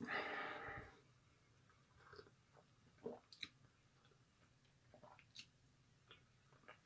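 Near silence: quiet room tone with a few faint scattered clicks.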